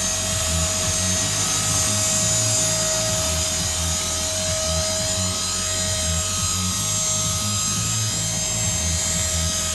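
Tarot 450 Pro electric RC helicopter in flight and hovering: its brushless motor and spinning rotors make a steady whine whose pitch holds level throughout.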